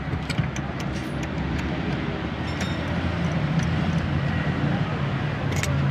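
A steady low mechanical hum, with scattered light clicks from a socket wrench and hand tools working at a car seat's mounting bolts.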